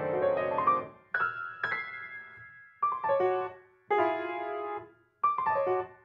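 Grand piano played solo: a full, ringing passage dies away about a second in. It is followed by a string of short phrases, each struck and left to ring, with brief silences between them.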